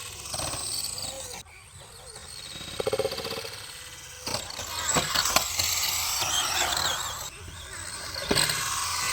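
Small 1/16-scale electric RC car running over rough ground: a high motor and gear whine that comes and goes as the throttle is worked, with a few sharp knocks from about the middle on.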